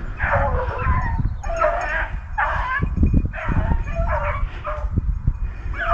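Pack of beagles baying as they run a rabbit's trail: several dogs giving repeated calls, about one a second, overlapping at different pitches.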